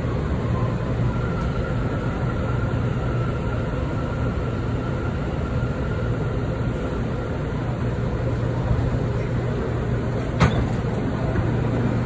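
Subway car running, heard from inside: a steady low rumble and hum, with a faint high whine through the first half and one sharp click about ten seconds in.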